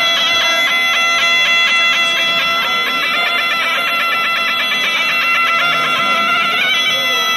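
Folk wind-instrument music: a reedy pipe plays a fast, trilling melody over a steady drone, bagpipe-like, with no drum. It settles into long held notes near the end.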